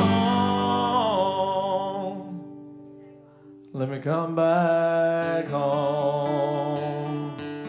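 A man singing with an acoustic guitar: a long held sung note fades away to a near pause about three seconds in, then strummed guitar and singing come back in.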